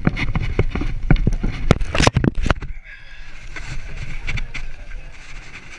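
Knocks, thumps and scrapes of a body and chest-mounted camera against wooden planks while clambering up a wall obstacle: a quick, irregular run of impacts in the first half, then a steadier rush of wind and outdoor noise.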